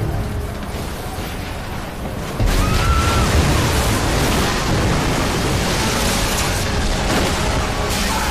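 Loud, dense rumbling noise of explosion-like sound effects with faint music under it, growing louder about two and a half seconds in.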